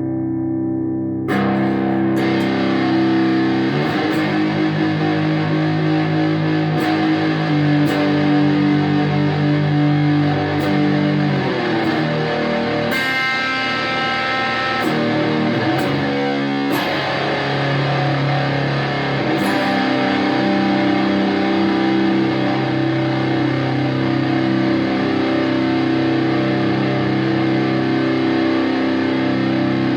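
Electric guitar played through a single-ended 6V6GT tube amplifier (Hofamp meTeor, 5 watts), giving overdriven, distorted chords and sustained notes. About a second in the tone turns suddenly brighter and louder.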